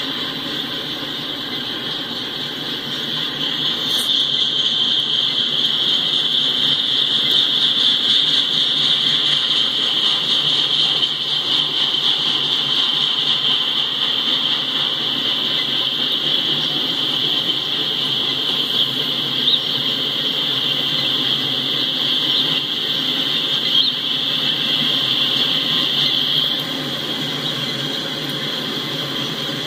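Autorack freight cars rolling past on steel wheels with a steady rumble and a continuous high-pitched metallic squeal from the wheels on the rails. The squeal grows louder about three seconds in and eases back near the end.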